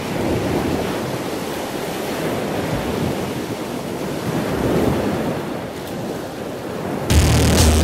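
Wind buffeting the microphone over the wash of surf on a beach, a steady rough noise. About seven seconds in, music with a heavy bass comes in abruptly and much louder.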